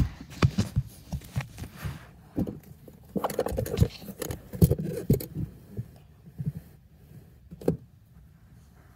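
Close handling noise: a quick run of clicks, taps and bumps for about five seconds as the phone and a toy are moved right by the microphone, then quieter, with a single knock near the end.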